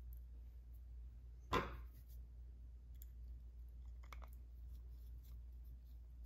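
Small clicks of a screwdriver and a tiny screw being worked into a metal carburetor body during reassembly, with one sharp clack about a second and a half in and a brief cluster of smaller clicks near the middle.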